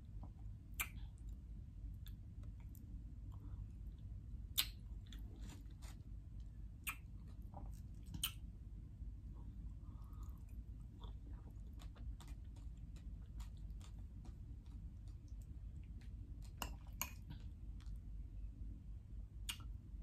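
Close-up chewing of soft golden kiwi fruit slices, with scattered sharp wet clicks, a few of them louder, over a steady low hum.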